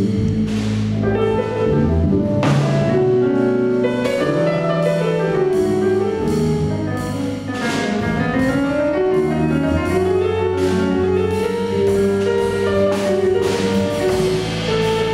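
Live jazz combo playing, with a Steinway grand piano in front over bass and drum kit, cymbals ringing throughout.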